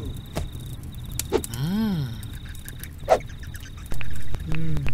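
Cartoon night-time ambience of crickets chirping steadily. A short wordless hum rises and falls about a second and a half in, another comes near the end, and a few light clicks are heard.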